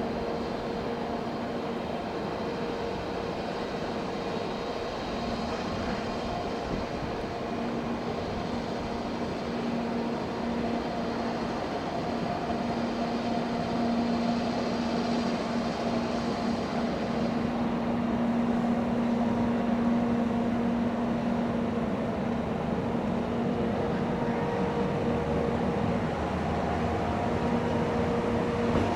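Electric train of an EF64 locomotive and E217 series cars running through the station: a steady mechanical hum with several even tones that grows a little louder about halfway through.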